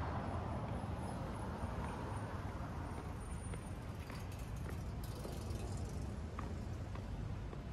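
City street ambience: a steady low traffic rumble, with a passing car's noise fading away in the first second or so. A few faint ticks come later.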